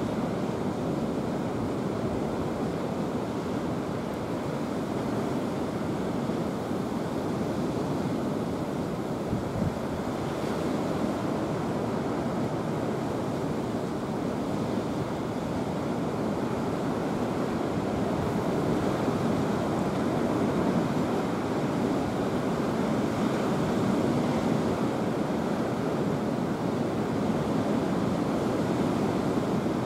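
Steady rushing outdoor background noise with no distinct events, a little louder in the second half.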